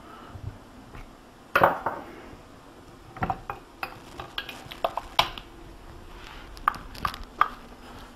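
Metal clanks and clinks as a Rotax two-stroke engine's crankcase is separated and its crankshaft handled and lifted out. A sharp clank comes about a second and a half in, followed by a run of lighter knocks and clinks.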